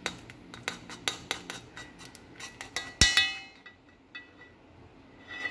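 Metal spoon stirring rasam in an aluminium kadai: quick clinks and scrapes against the pot, then a louder clang about three seconds in that rings briefly, and one more ringing tap near the end.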